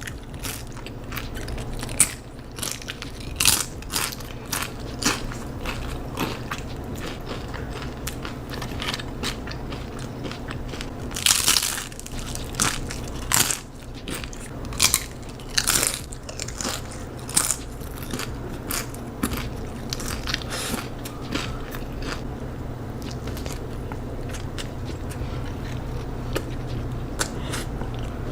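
Close-miked eating: a person biting into and chewing crunchy food, with irregular sharp crunches and wet chewing, busiest in the middle, over a steady low hum.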